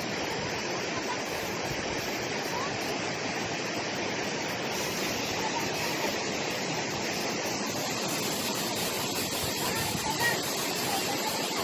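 Waterfall and stream water rushing over rocks in a steady, even roar.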